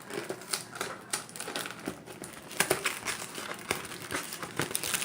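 Hot Pockets packaging crinkling and rustling as it is pulled open by hand, plastic wrapper and cardboard box, with irregular crackles and a few sharper snaps.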